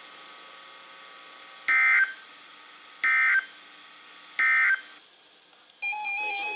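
Three short warbling data bursts of the SAME/EAS end-of-message code on NOAA Weather Radio, each about a third of a second and spaced a little over a second apart, closing the required weekly test. Faint radio hiss lies between them, and a synthesized tune starts near the end.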